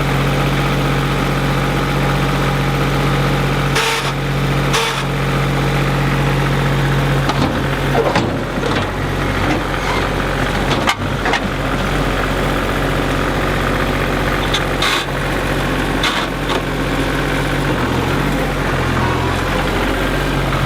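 An engine running steadily, with several sharp knocks or clanks over it, the loudest about 11 seconds in.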